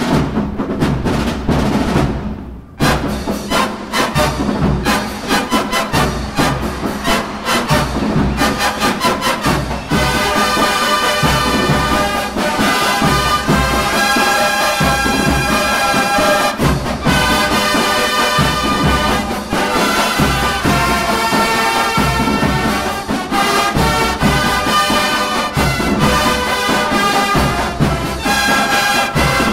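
Drum and bugle corps playing: the drum line's rapid strokes lead for the first ten seconds or so, then the bugle line comes in with full, sustained brass chords over the drums.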